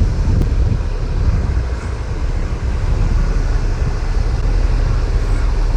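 Wind buffeting the microphone over the steady low rumble of a vehicle's engine.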